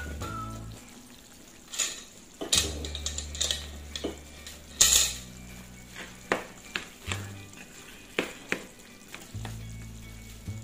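A spatula knocking and scraping in a nonstick frying pan as sticky rice cooking in coconut milk is mashed and stirred. It gives a string of irregular clacks, the loudest about halfway through.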